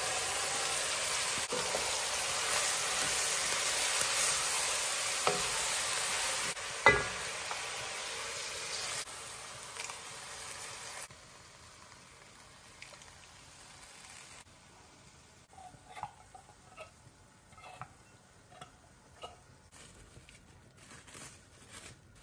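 Ground beef, chopped peppers and onions sizzling and frying in an enamelled Dutch oven as they are stirred. The sizzle drops in steps and is gone by about halfway, leaving a quieter stretch of small knocks and taps from handling.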